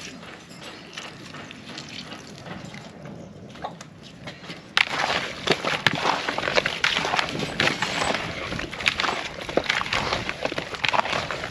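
Dry wood snapping and crackling: light rustling at first, then a dense run of sharp cracks that starts suddenly about halfway through.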